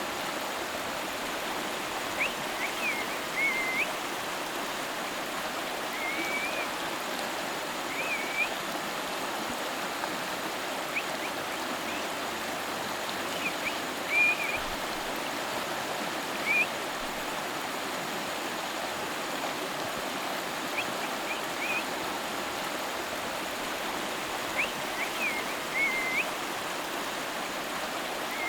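River water flowing and splashing steadily, with short high chirps every few seconds, the loudest about halfway through.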